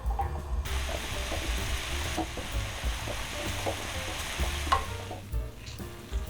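Steady sizzling hiss of cooking on the stove, starting about half a second in and easing off near the end.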